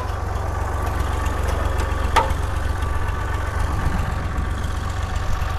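Tractor engine running steadily, driving the hydraulics of a sensor-arm inter-row hoe, with one sharp click from the hoe's mechanism about two seconds in as the sensor rod is pushed and the blade arm swings.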